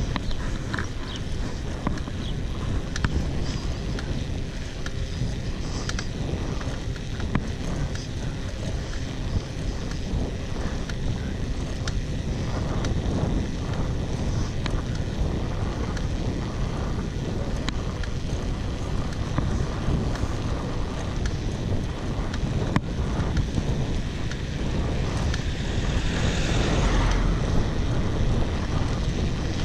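Wind buffeting the microphone of a bike-mounted camera on a mountain bike descending at speed on asphalt, with the tyres rumbling on the road. A brighter hiss swells briefly near the end.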